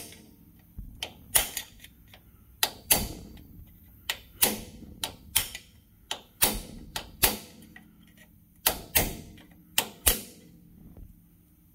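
Hammer striking a chisel against the grooved, hardened-steel outer race of a wheel bearing stuck in a 2002 Lincoln Town Car's rear axle tube: about twenty sharp metallic strikes with a short ring, irregular and often in quick pairs. The strikes are meant to crack the race, which has not yet given way.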